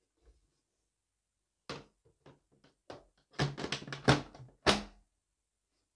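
A run of sharp knocks and clunks from hard objects being handled: a few light clicks, then a quick cluster of louder clunks between about three and a half and five seconds in.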